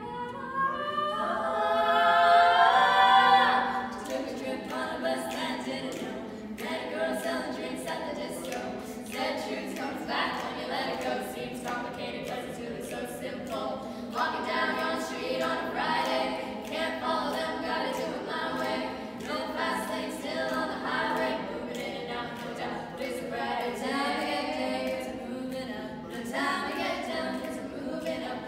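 Five-voice female a cappella group singing in close harmony, with no instruments; the first few seconds swell into a loud chord, then a steady beat of sharp clicks starts about four seconds in under the continuing singing.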